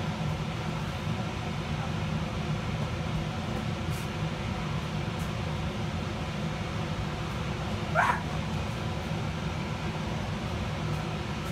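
Steady drone of the electric blower keeping an inflatable bounce house inflated. About eight seconds in, one short high yelp rises above it.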